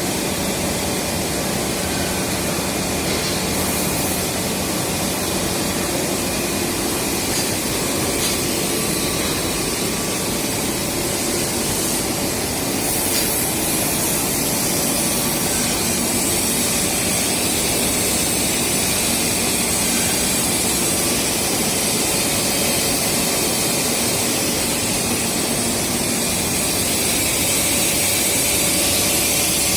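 Steady, even machine noise of a power-cable production line running: the extrusion line and automatic coiling and wrapping machinery, a dense hiss with faint steady hums under it.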